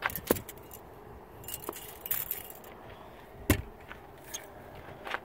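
Gear being handled and set down: scattered clicks and knocks, with one heavier thud about three and a half seconds in.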